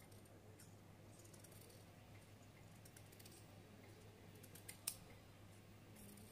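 Faint snips and clicks of metal scissors trimming along the stitched edge of a satin fabric strip, with one sharper snip about five seconds in.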